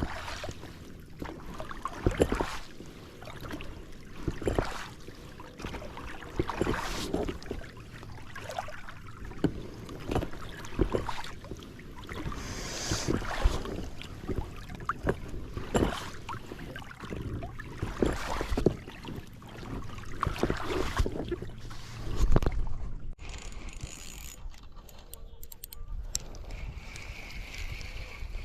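A one-man pontoon boat being rowed: oars knocking and splashing about every second or two, with wind on the microphone. A steady high whir starts near the end.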